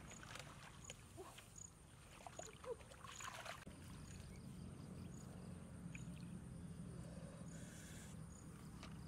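Faint outdoor ambience of a wet field, with a short high chirp repeating about every two-thirds of a second. In the first few seconds there is soft splashing and rustling as hands grab in a shallow rain puddle and wet grass to catch a frog.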